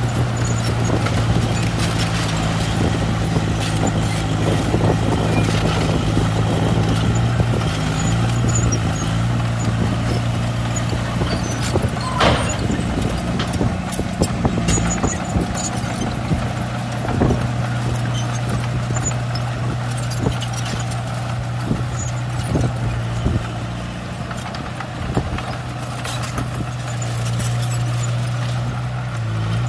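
Heavy diesel engine of earthmoving machinery running steadily, with scattered metallic clanks and knocks over it and one sharper knock about twelve seconds in.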